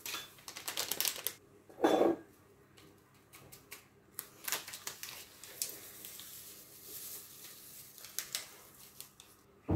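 Paper sachets of flan and cuajada powder being handled, torn and shaken out into a small glass bowl: faint rustling and crinkling with scattered small clicks, and a brief louder knock about two seconds in.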